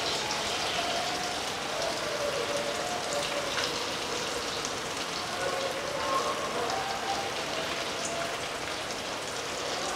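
Paneer balls deep-frying in hot oil in a pan on a gas stove turned down to medium: a steady sizzle that does not let up.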